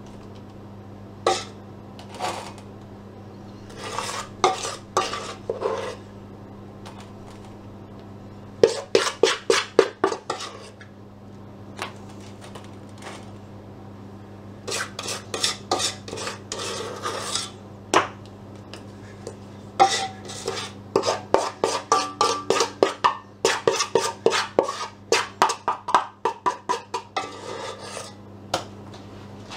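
A spoon scraping and knocking against the mixing bowl and metal cake tins as thick cake batter is scooped out and spooned into the tins. It comes in irregular clusters, with quick runs of taps about nine seconds in and again for several seconds near the end.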